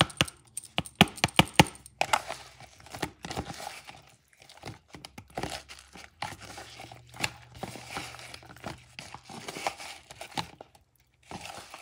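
A hand mixing raw smelt with cornstarch in a plastic bowl: irregular wet squelching and rustling, with a quick run of sharp clicks in the first two seconds.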